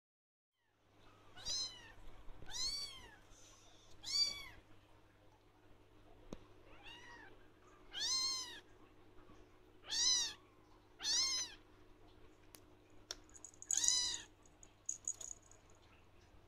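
Blue lynx ragdoll kitten meowing for attention: about eight high-pitched meows a second or two apart, each rising then falling in pitch, over a faint steady hum.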